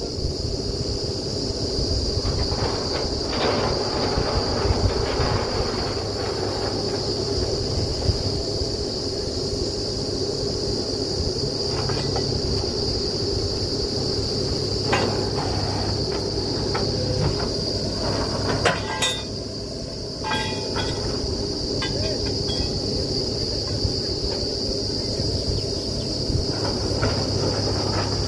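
Truck-mounted borewell drilling rig running steadily: a heavy, continuous drone from its engine and air compressor. A few sharp knocks stand out about midway through.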